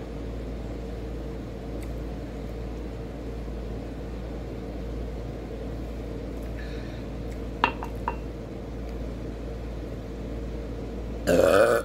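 Steady low mechanical hum of a fan or air conditioner, with two light clinks about eight seconds in and a short, loud throat noise just before the end.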